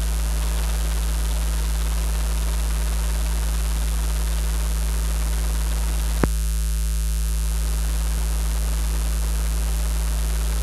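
Steady electrical mains hum with hiss on the recording, with one sharp click about six seconds in.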